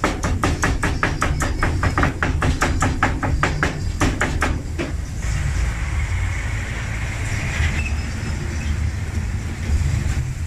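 Cleaver chopping barbacoa on a cutting board in quick steady chops, about five a second, for some five seconds. Then the steady hiss of meat sizzling on a flat-top griddle, over a low rumble.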